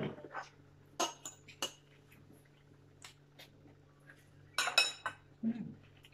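Metal forks clinking and scraping against china plates during a meal. There are a few sharp single clinks, and a louder cluster of clatter near the end.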